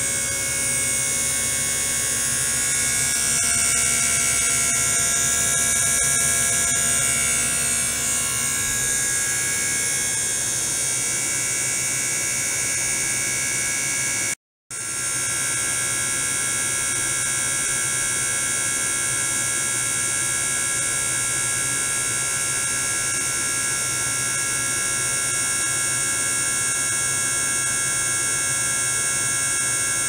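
Small electric liquid-circulation pump running steadily with a buzzing hum and several high whining tones. The sound cuts out for a moment about halfway.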